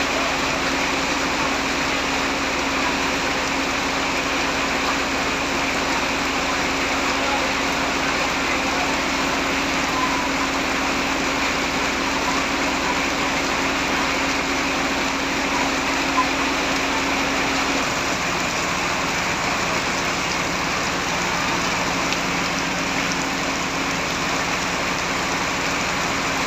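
Heavy rain falling steadily, a dense even hiss. Underneath, an engine idles with a steady hum that drops lower in pitch about two-thirds of the way through.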